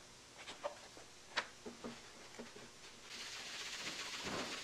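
A few light clicks and taps of a small metal engine nameplate being handled on a metal bench, then, about three seconds in, a steady scratchy rubbing as the plate is buffed on a Scotch-Brite abrasive pad.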